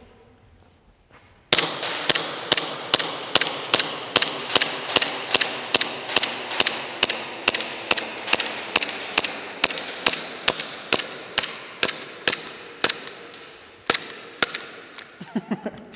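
VFC Glock gas-blowback airsoft pistol fired in a steady string of about thirty shots. Each shot is a sharp crack with the slide clacking back, about two to three a second, starting about a second and a half in. The shots echo in a bare concrete hall, and the string stops near the end as the magazine runs empty.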